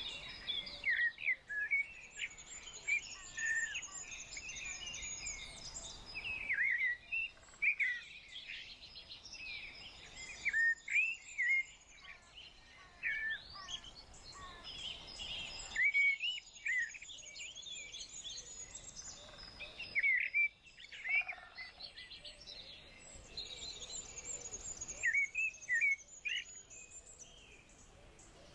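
Several small songbirds chirping and singing, a busy overlapping run of short, quick notes with a thin high trill on and off.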